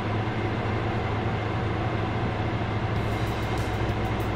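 Steady low mechanical hum of shop machinery. About three seconds in, the rumble deepens and a rapid, faint ticking joins it.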